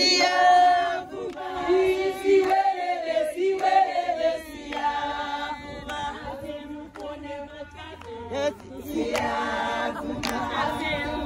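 A group of women singing and chanting a traditional song together, with hand claps.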